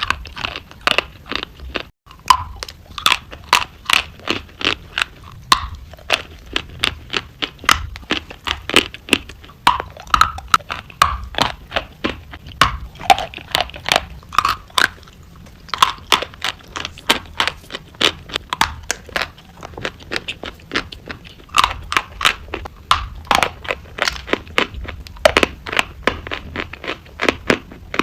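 Close chewing of something crunchy: sharp, crackly crunches several times a second, in runs broken by short pauses.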